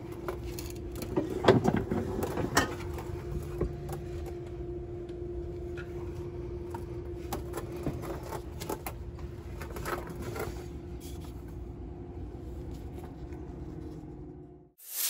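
A steady mechanical hum with a low rumble, broken by a handful of knocks and clunks, the loudest about a second and a half in. The hum cuts off sharply just before the end.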